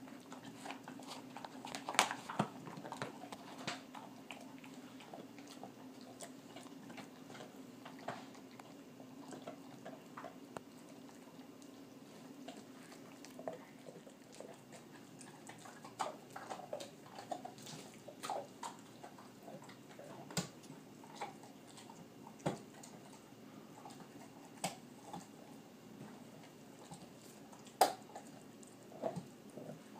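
Dog gnawing a raw beef rib bone: irregular chewing with sharp cracks and clicks of teeth on bone, the loudest about two seconds in and again near the end.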